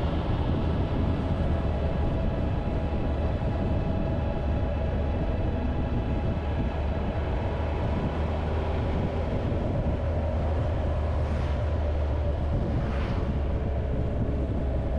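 Motorcycle engine droning steadily at cruising speed, with wind rushing over the microphone. Two brief swells of passing noise come near the end.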